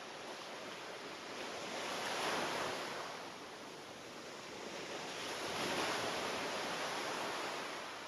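Ocean surf: waves breaking and washing up the shore. Two waves swell and fade, about three and a half seconds apart.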